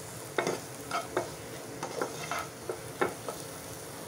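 Slotted spatula stir-frying shredded cabbage, carrot and capsicum in a frying pan: short scrapes of the spatula against the pan about twice a second over a low, steady sizzle.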